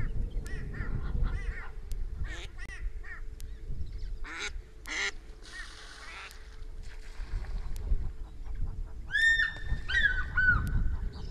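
Egyptian geese calling: a string of short, harsh honks, two louder calls about halfway through, and a run of longer, clearer calls near the end.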